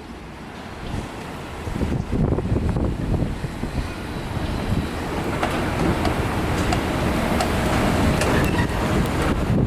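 Heavy mechanical rumble building steadily louder, with scattered clicks and knocks.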